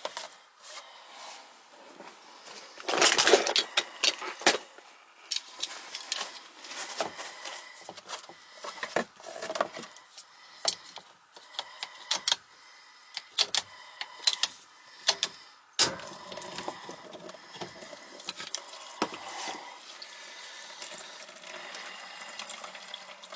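Water being poured into an air handler's secondary drain pan to test whether the clogged condensate drain carries it away, among scattered clicks and knocks of handling. A steadier run of water sound begins about two-thirds of the way in.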